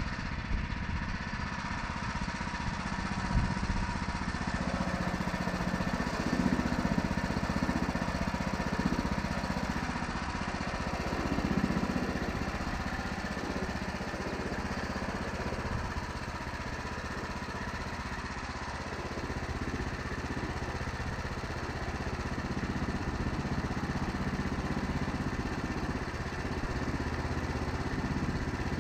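Woodland Mills HM126 portable bandsaw mill running steadily, its gas engine driving the band blade through a cherry log.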